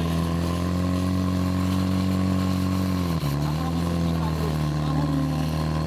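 Portable fire pump's engine running at high revs, driving water through the hoses to the two nozzles. Its pitch dips briefly about three seconds in, then steadies again.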